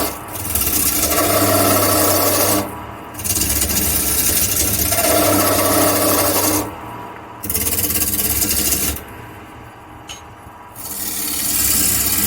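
Turning chisel cutting a spinning dry black walnut and hemlock blank on a wood lathe: a harsh scraping hiss over the lathe's steady hum. It comes in several passes, with short breaks where the tool lifts off, about 3, 7 and 9 seconds in.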